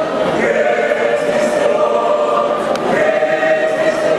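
A choir singing long held chords that change to new notes a couple of times.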